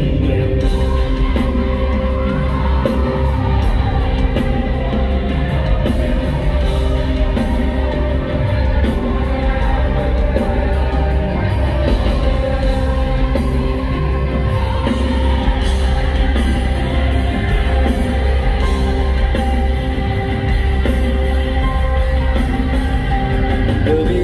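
Live rock band playing loudly through a concert sound system in a large hall, with a male lead vocal over it, recorded from the audience.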